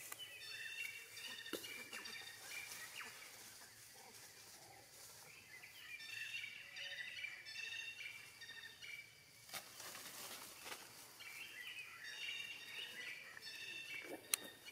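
Forest birds chirping and twittering in three short bouts of quick high notes, with a few sharp clicks; the loudest click comes near the end.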